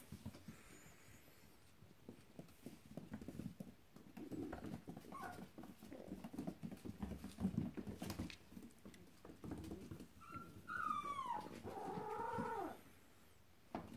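Puppies scuffling in play on a wooden floor, with many quick clicks and pattering of paws and claws. Near the end a puppy gives a falling whine, then a short whimpering call.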